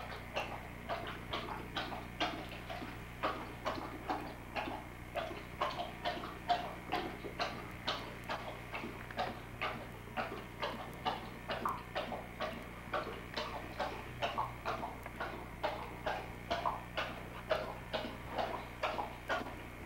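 A dog panting steadily and rhythmically, about three quick breaths a second.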